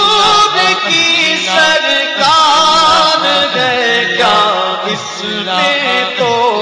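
Naat sung by male voices: a long, winding wordless melody over a steady low hum.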